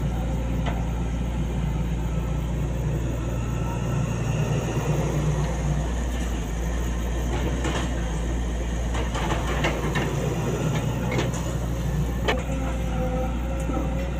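Sany SY135F hydraulic excavator's diesel engine running steadily while it works. From about halfway in there is a series of sharp metallic knocks and clanks, the loudest near the end.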